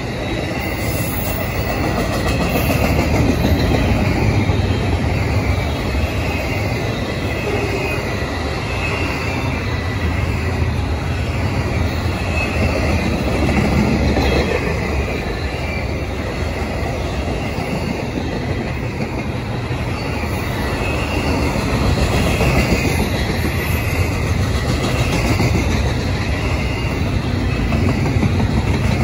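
Double-stacked intermodal well cars of a freight train rolling past: a steady deep rumble and clatter of steel wheels on rail, with a faint wavering wheel squeal above it.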